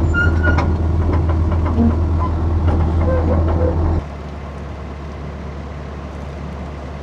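Engine running steadily with a low hum and scattered clicks and knocks. About four seconds in the level drops sharply to a quieter hum.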